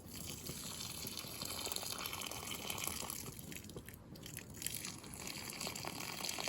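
Running water splashing and trickling, with scattered drips.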